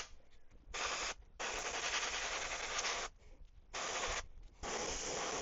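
Airbrush hissing in four short bursts of spray as its trigger is pressed and released, laying down paint. The second burst is the longest, and the last runs on past the end.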